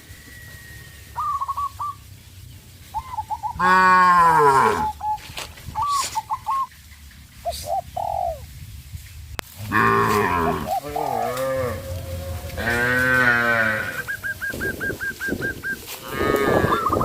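Cattle mooing several times, the loudest a long moo that falls in pitch about four seconds in. Between the moos, birds call with short high notes, ending in a fast run of evenly repeated notes.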